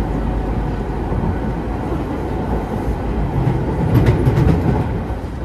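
Interior running noise of a Nagano Electric Railway 3500 series electric train (ex-Teito Rapid Transit 3000 series) crossing a steel truss bridge: a steady rumble of wheels on rail, growing louder with a few sharp clacks about four seconds in.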